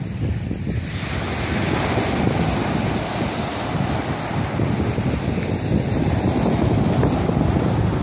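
Small sea waves breaking and washing up a sand beach: a steady rushing hiss of surf that brightens about a second in. Wind buffets the microphone underneath as a low rumble.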